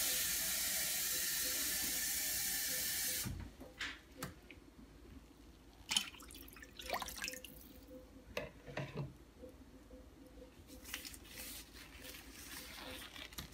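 Water running steadily into a pot of meat, topping up the water to cover the meat for a broth; it cuts off about three seconds in. After that, a few light knocks and small handling sounds.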